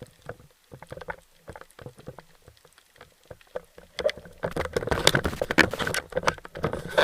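Water splashing and sloshing around the camera, at first as scattered irregular splashes, then about two-thirds of the way in as a loud, dense run of splashing and knocking.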